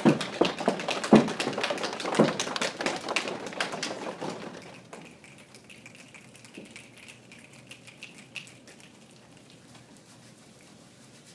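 A group making a thunderstorm with body percussion: dense finger snaps, leg pats and heavy stomping thumps. A little under five seconds in it drops sharply to scattered soft snaps and hand rubbing, the rainstorm dying down.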